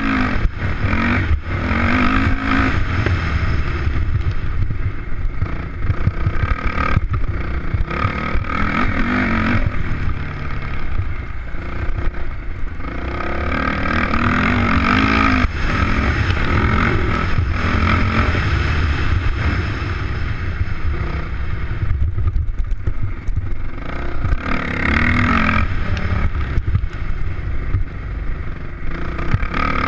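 Off-road motorcycle engine revving up and down as it is ridden along a dirt track, pitch climbing and dropping again and again with short lulls where the throttle eases off. A steady low rumble runs beneath.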